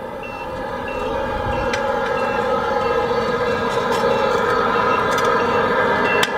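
Tamiya radio-controlled truck's sound unit playing a truck engine running with reversing beeps, about one and a half beeps a second, getting louder as the truck reverses closer.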